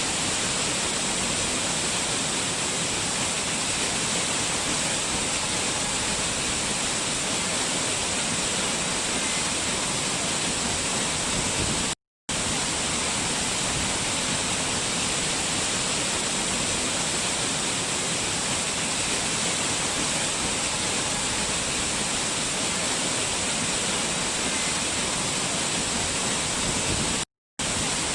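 Waterfall rushing in a steady, even roar of falling water. The sound cuts out to silence for a moment twice, about twelve seconds in and again near the end.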